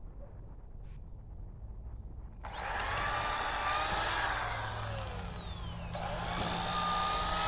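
Electric drill boring holes in wood, two runs: the motor starts with a sudden whine about two and a half seconds in and sinks in pitch as the bit bites, then a second hole is started about six seconds in.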